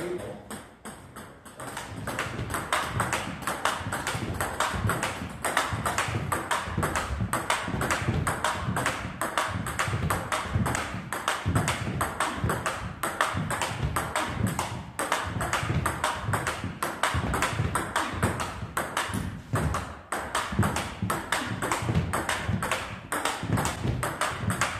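Table tennis ball being hit back and forth in a practice rally: a steady, quick run of sharp clicks as the ball strikes the bats and bounces on the table.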